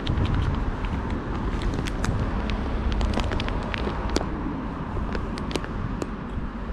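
Steady low outdoor rumble, like traffic or wind on the microphone, with irregular sharp clicks and taps scattered through it.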